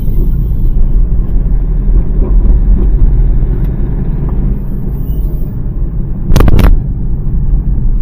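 Hyundai Xcent diesel car driving, heard from inside the cabin: a steady low rumble of engine and road, with a brief loud clatter of knocks about six and a half seconds in.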